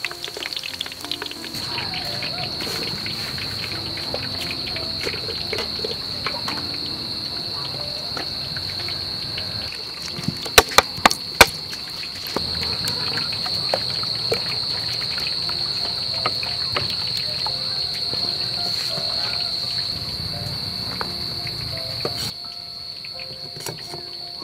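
Steady high-pitched chirring of crickets or other night insects throughout, over light kitchen clatter. Four sharp knocks come close together about ten seconds in, and everything drops quieter near the end.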